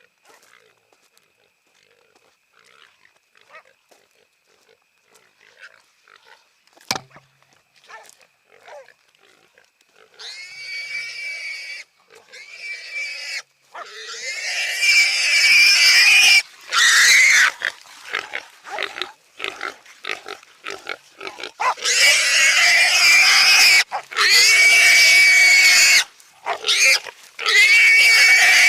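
Feral hog squealing loudly and repeatedly in long, shrill cries with short breaks, starting about ten seconds in, as a hog caught by hunting dogs. Before that there is only faint rustling and one sharp click.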